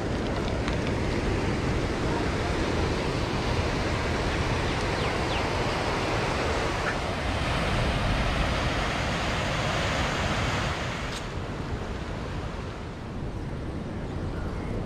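Sea surf breaking on the shore, a steady rushing wash mixed with wind on the microphone. About eleven seconds in the noise cuts off suddenly and drops to a quieter hiss.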